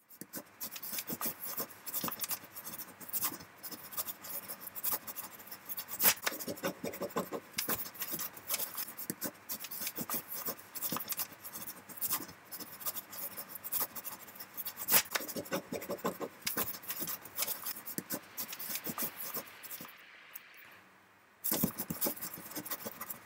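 Pen and marker nibs scratching on paper in many quick, irregular strokes, as when ink drawing is sped up. The scratching stops briefly a couple of seconds before the end, then starts again.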